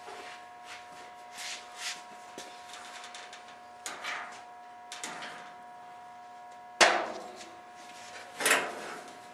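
Tools and metal car parts being handled during disassembly: scattered light clicks and rattles, then a loud clank about seven seconds in that rings off over a second, and another knock shortly after.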